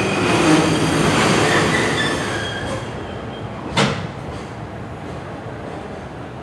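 Container wagons of an arriving freight train rolling slowly past on the rails, with a wheel squeal that fades away in the first couple of seconds as the train slows. About four seconds in comes a single sharp clank, and the rolling noise grows steadily quieter.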